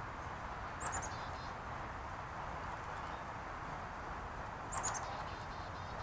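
A small songbird calling twice, about four seconds apart: each time a quick run of high, thin notes followed by a few lower ones, over a steady background hiss.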